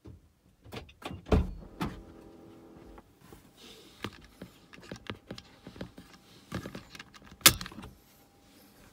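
Clicks, knocks and rattles inside a car, with a short steady hum about two seconds in and a sharp knock near the end.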